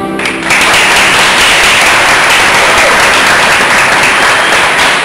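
A mariachi band's final chord, with trumpet and guitars, cuts off at the start, and about half a second in a room full of people breaks into steady applause.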